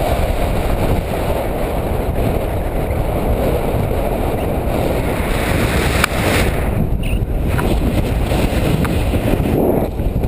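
Wind buffeting a pole-mounted GoPro camera's microphone during a tandem paraglider flight: steady, loud wind noise, with a brief click about six seconds in.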